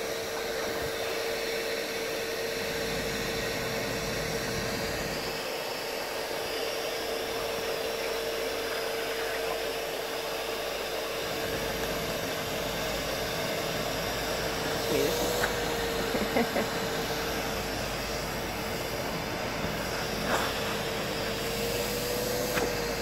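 Vacuum cleaner running with a steady whine, its hose nozzle against a horse's muzzle. The pitch wavers briefly twice, and a few short knocks come in the second half.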